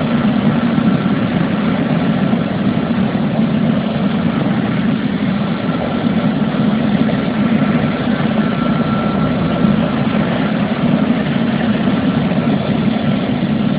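Air-ambulance helicopter running on the ground after landing, its turbine and rotor making a steady, loud drone with a faint high whine over it.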